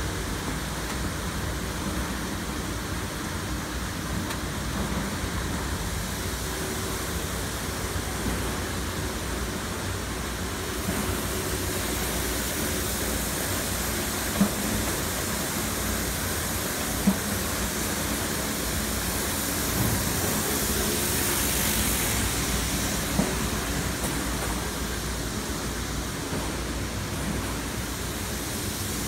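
Steady running of packing-line conveyors and machinery: a constant low hum under an even hiss, with three brief sharp knocks spread through the middle.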